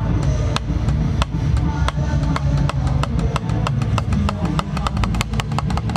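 Wooden drumsticks striking a Meinl rubber practice pad: sharp dry clicks, a few a second at first, quickening into fast runs of strokes in the last two seconds. A steady low rumble sits underneath.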